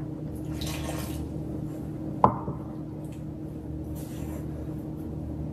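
Silicone spatula stirring damp masa flour in a glass mixing bowl, soft scraping and squishing, with one sharp glass clink a little over two seconds in. A steady low hum runs underneath.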